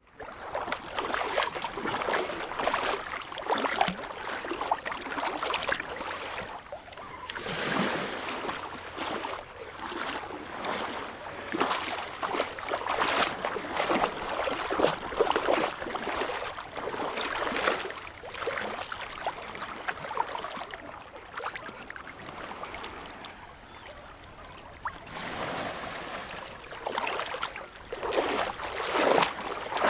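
A person swimming in the sea: irregular splashing and sloshing of water from the strokes, easing off for a few seconds about two-thirds through, then splashing harder again near the end.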